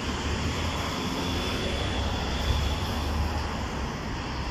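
Street traffic: cars driving past on a busy road, a steady low rumble of engines and tyres.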